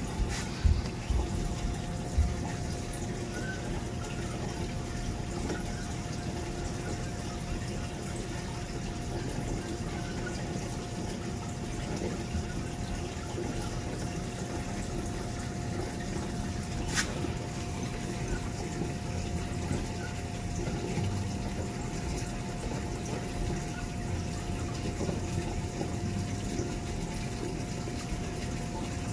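Reef aquarium's water circulation running steadily: a constant rush of moving water with a steady pump hum, and a single light click about halfway through.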